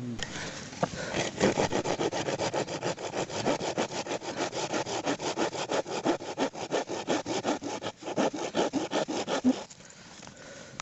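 Hand saw cutting through wood with rapid, even back-and-forth strokes, stopping shortly before the end.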